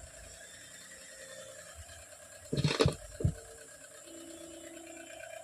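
Two thumps about half a second apart, a little under three seconds in, as AC power is connected to a tower speaker's amplifier board. A faint steady hum runs underneath.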